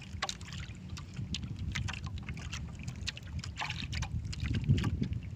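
Sea water lapping against the hull of a small wooden fishing boat over a steady low rumble, with scattered light clicks.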